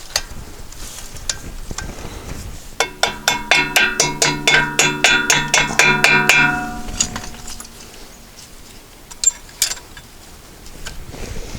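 A rapid run of ringing metal-on-metal strikes, about five a second for nearly four seconds, followed a few seconds later by two sharp clicks.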